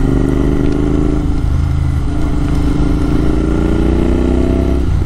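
Motorcycle engine heard from the rider's seat while accelerating. Its pitch drops at a gear change about a second and a half in, then rises steadily as it pulls through the next gear, and eases off near the end.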